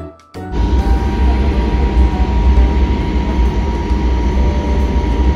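Passenger train running at about 100 km/h, heard from inside the coach: a steady, loud low rumble of wheels on rail with a faint steady whine, starting abruptly about half a second in.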